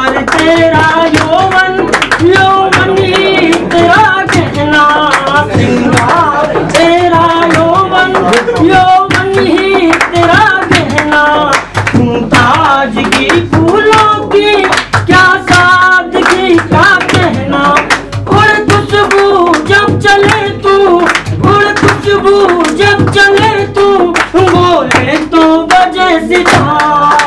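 A man singing a melodic song, with a steady beat of sharp percussive strokes under the voice.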